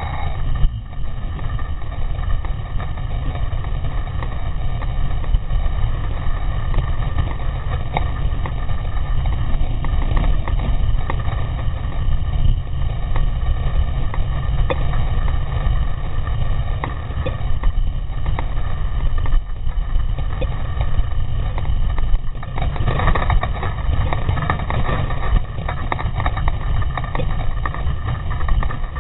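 Mountain bike riding fast down a dirt trail: a steady low rumble of wind and tyre noise on the microphone, with frequent small clatters as the bike jolts over bumps.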